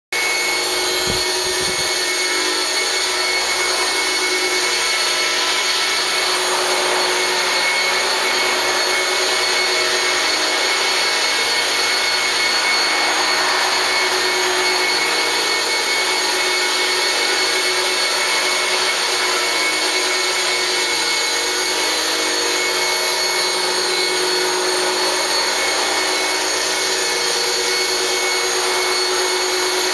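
Electric 450-size RC helicopter flying with a scale UH-1 Huey fuselage: a steady high-pitched whine from its electric motor and gears over the swish of the spinning rotors.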